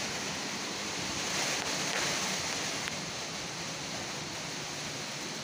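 Cyclone storm wind and rain making a steady rushing hiss, which swells a little about a second and a half in.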